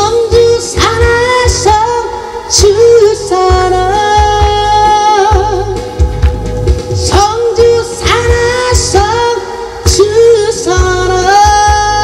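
A woman singing a Korean song into a microphone over instrumental accompaniment with a steady beat, holding long notes with vibrato.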